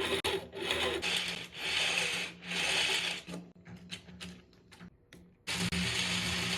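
Small electric motor of a battery-powered toy train whirring, in uneven spurts at first, then running steadily from about five and a half seconds in.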